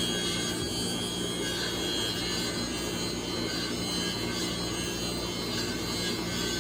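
Sawmill saw cutting timber: a steady mechanical run with a constant high whine over it.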